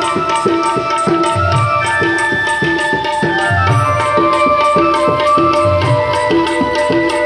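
Instrumental devotional music: tabla played to a steady beat, with deep bass-drum strokes about once a second, over sustained electronic keyboard notes and quick regular high ticks.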